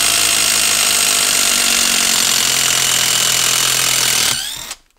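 Hyper Tough cordless impact driver hammering steadily as it backs a 10-inch TimberLok screw out of a wooden stump. It speeds up briefly with a rising whine as the screw comes free about four seconds in, then stops.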